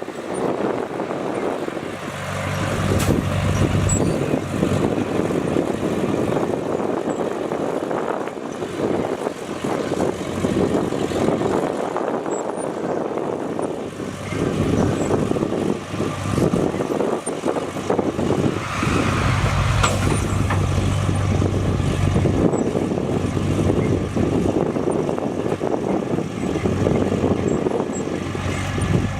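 Komatsu bulldozer's diesel engine running under working load, its deep note swelling and easing as the machine pushes.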